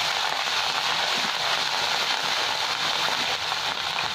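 Ginger paste and whole spices sizzling in hot oil in a kadai: a steady hiss with a few faint crackles as they are stirred with a spatula.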